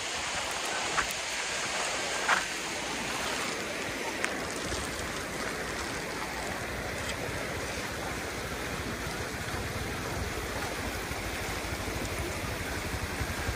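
Rushing water of a muddy runoff stream beside a dirt track: a steady wash, with a few sharp clicks in the first few seconds and a low rumble building near the end.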